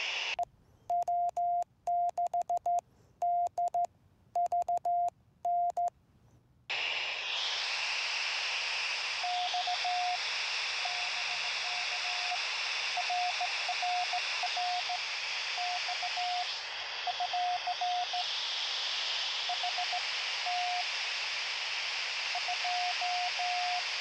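Morse code on a 2-metre radio. For about the first six and a half seconds a clean keyed tone sends dots and dashes with dead silence between, the sending station's own code; then a steady receiver hiss opens and the answering station's fainter Morse comes through it in short groups.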